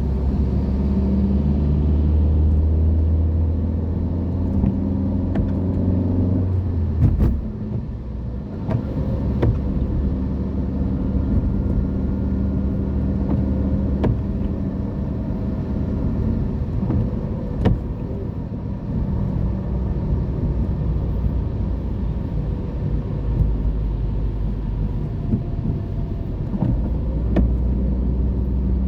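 Car engine and road traffic noise: a steady low engine drone that eases about seven seconds in, with a few light knocks.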